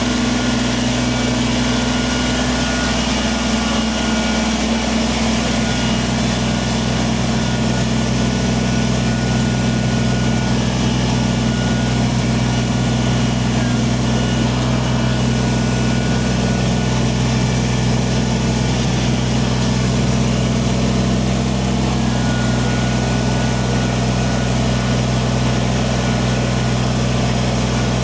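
Kubota compact tractor's diesel engine running steadily at an even pitch.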